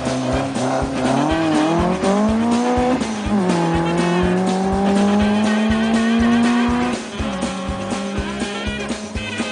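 Peugeot 205 rally car engine revving hard as it accelerates away, its pitch climbing, dropping at an upshift about three seconds in, climbing again, then easing off about seven seconds in. Music with a steady drum beat plays underneath.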